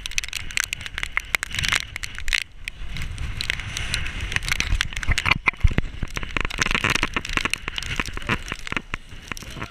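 Storm wind buffeting the microphone: a low rumble with many irregular crackling clicks.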